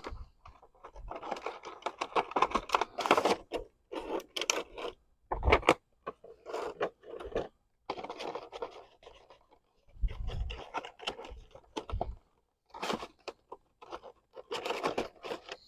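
A Hot Wheels five-pack of diecast toy cars being opened by hand: irregular scratching and scraping of the packaging in bursts with short pauses, and a few dull knocks.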